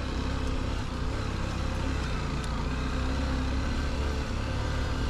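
Honda XR150L dirt bike's single-cylinder engine running steadily as it climbs a muddy dirt track, heard from on the bike as an even, low rumble.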